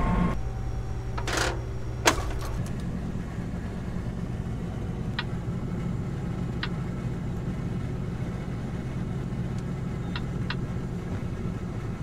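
Steady low drone of a John Deere combine's engine heard from inside the cab, with a sharp knock about two seconds in. A few short clicks come later as the overhead touchscreen display is tapped.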